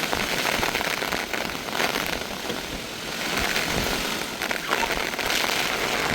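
Heavy rain falling, a dense crackle of drops hitting a surface.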